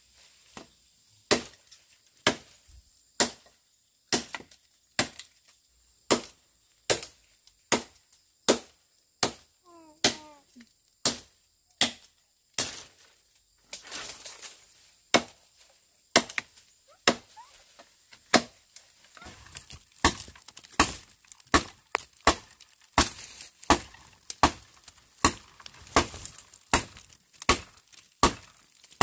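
Wood being chopped with a blade: a long series of sharp strikes, about one a second at first and quickening to nearly two a second later on.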